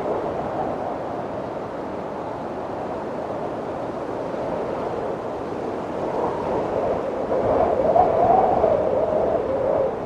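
Wind blowing steadily, with a wavering howl that swells louder in the second half.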